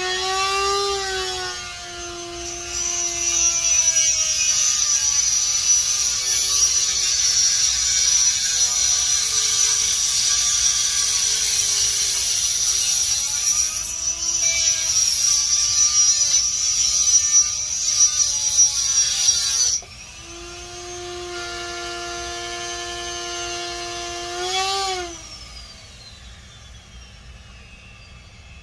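Hand-held rotary tool cutting into a branching coral: the motor whine dips and wavers as the bit bites, over a harsh grinding hiss. About twenty seconds in the cutting stops and the tool runs free at a steady whine. It is switched off about five seconds later and spins down with a falling pitch.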